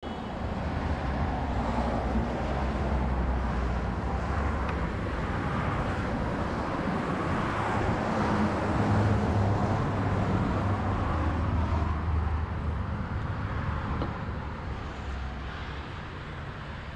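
Outdoor road traffic with a steady low engine hum, swelling about eight seconds in and easing off after about twelve.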